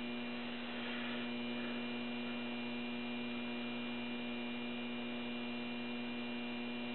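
Ballast transformer of a lit American Electric 100-watt high-pressure sodium street lamp giving a steady, even electrical hum.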